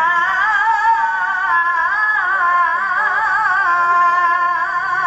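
A man reciting the Quran in melodic tilawah style, holding one long ornamented note on the vowel of "yā" ("O..."), its pitch wavering in melismatic turns.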